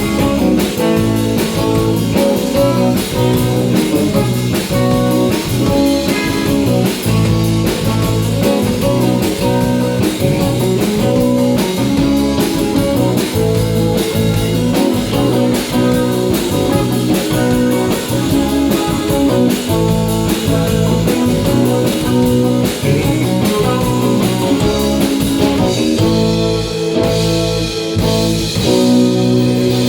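Live country band playing an instrumental passage: electric guitar over bass and drum kit with a steady beat.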